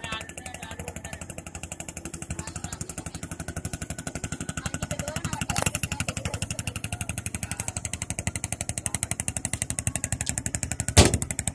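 Motorboat engine running steadily with a rapid, even chugging, a little louder after the first few seconds. A sharp knock about eleven seconds in is the loudest single sound.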